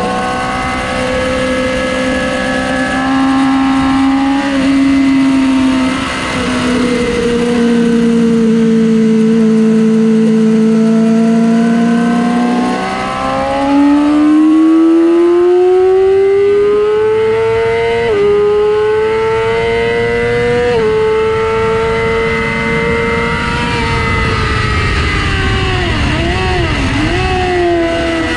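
2006 Yamaha R6 inline-four sport bike engine at high revs on track. The note holds nearly steady and eases slightly for about twelve seconds, then climbs hard under acceleration with two short drops in pitch at gear changes, and falls away with a few quick dips near the end as the bike slows. Wind rush sits under the engine throughout.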